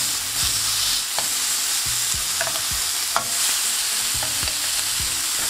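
Marinated chicken wings sizzling on a hot cast-iron grill pan, a steady hiss. Several light clicks come as metal tongs turn the wings over against the pan.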